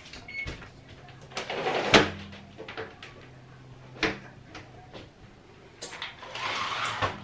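Household knocks and bumps, the loudest about two seconds in and another about four seconds in, like doors or drawers being handled, with a brief low hum after the first big knock and some rustling near the end.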